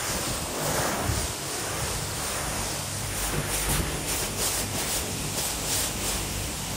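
Pressure washer spraying water from its lance: a steady hissing rush with a low pump hum beneath.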